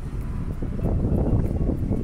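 Strong gusty wind blowing on the microphone outdoors, an uneven low buffeting that swells a little about halfway through.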